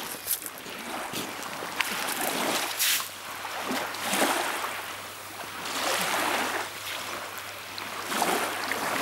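Sea water washing along the shore and wind on the microphone, a noisy rush that swells and falls every second or two.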